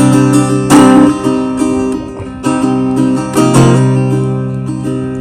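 Strummed acoustic guitar music, an instrumental passage of a song with no singing.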